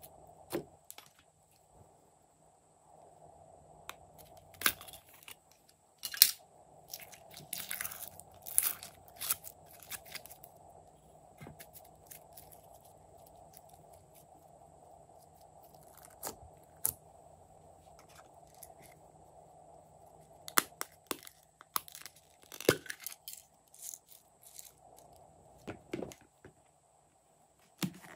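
Glossy slime being pressed, poked and stretched by hand, giving sticky crackles, clicks and small pops in irregular clusters.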